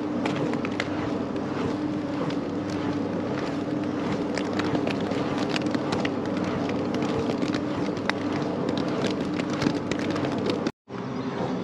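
A 100 kW wind turbine running close overhead: a steady mechanical hum with a held tone, over wind noise and scattered light ticks.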